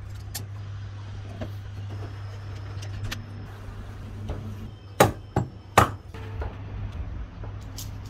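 Work on parts during a motorcycle restoration: scattered light clicks and taps, then three sharp knocks in quick succession about five seconds in, over a steady low hum.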